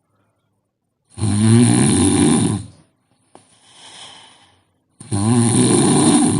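A sleeping woman snoring: two loud snores about four seconds apart, with a quieter breath between them.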